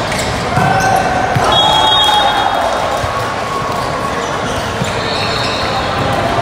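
Indoor volleyball match: the ball being hit and bouncing on the court, with players and spectators calling out over a steady crowd hum.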